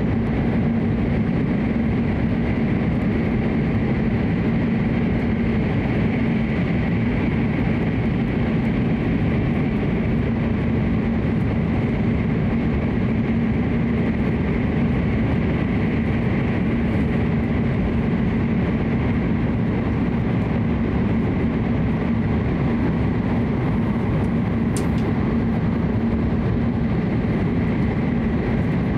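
Hokuriku Shinkansen train heard from inside the passenger car while running between stations: a steady, unbroken rumble with a constant low hum. A single brief tick comes near the end.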